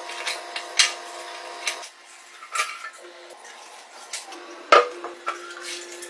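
Metal hand tools clinking, tapping and scraping against the rusty steel parts of an old Honda CG125 motorcycle as it is taken apart. The sound is a series of sharp clicks and knocks, with the loudest clatter about three-quarters of the way through, over a faint steady hum.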